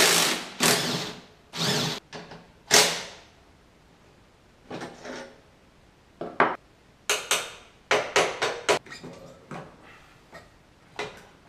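Metal hand tools clinking and knocking against motorcycle parts and a wooden workbench: a run of short, sharp clatters with pauses between, busiest in the first few seconds and again in a quick cluster past the middle.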